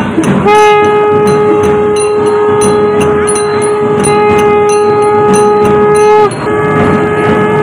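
A long horn blast held on one steady note for about six seconds, dipping slightly as it ends, then a second shorter blast. Under it runs a rhythmic clash of percussion, about two to three strokes a second.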